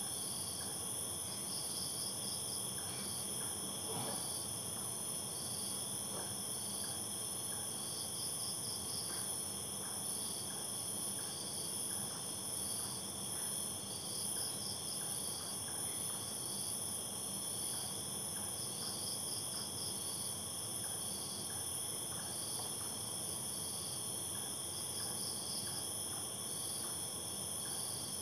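Night chorus of crickets and other insects: a steady high-pitched shrilling in several pitches, with one insect chirping in short trains every few seconds over a faint ticking. A single soft knock about four seconds in.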